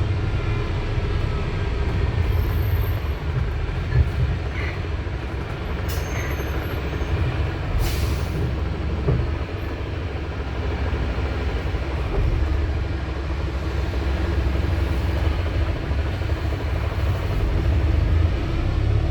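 Wright StreetDeck double-decker bus's Mercedes-Benz OM934 four-cylinder diesel engine running with a steady low rumble, with a short hiss of air about eight seconds in.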